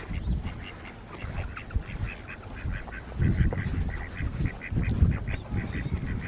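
A duck calling in a quick run of short, repeated notes, about five a second, starting about two seconds in, over a low rumble of wind on the microphone.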